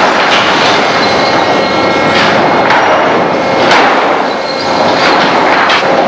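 Sawmill machinery running loudly and steadily, with heavy knocks and clatter every second or two.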